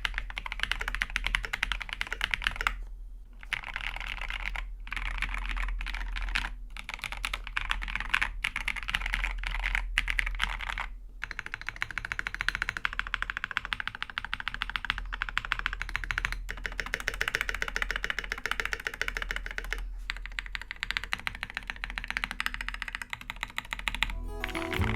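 Rapid continuous typing on an Idobao ID80 mechanical keyboard with lubed Durock POM linear switches, a polycarbonate plate, PE foam mod and ASA-profile keycaps, broken by a few short pauses. Music comes in near the end.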